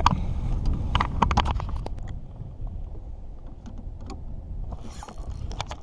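Low rumble of wind on the microphone and water against a small fishing boat's hull. Several sharp clicks and knocks come in the first two seconds and again near the end.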